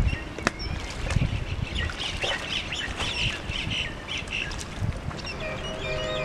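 Birds calling, a quick run of short squawking calls from about two seconds in, over a steady low rumble; a steady droning tone starts near the end.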